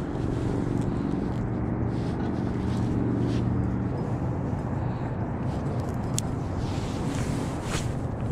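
Spinning reel being cranked, its gears whirring in a steady hum for about four seconds and then stopping, over low wind rumble on the microphone. Two sharp clicks follow in the second half.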